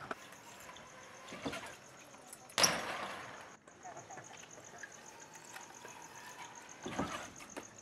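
Outdoor skatepark ambience with a steady high chirping of insects throughout. A sudden loud clatter comes about two and a half seconds in and dies away over about a second, with a few softer knocks later.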